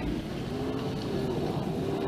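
An engine running steadily, its pitch wavering slightly, over a low rumble.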